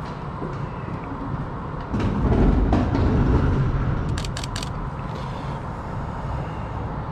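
A vehicle passing on the street below, a low rumble that swells about two seconds in and fades away, over steady city ambience. Partway through the fade comes a quick run of four or five sharp clicks.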